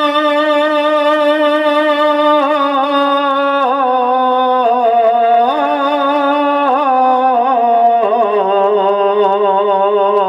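Male qawwali singer holding long, wavering sung notes with pitch slides between them, stepping down to a lower note about eight seconds in.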